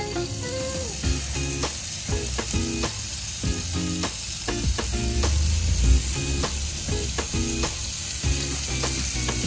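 Squid sizzling steadily as it grills in melted margarine.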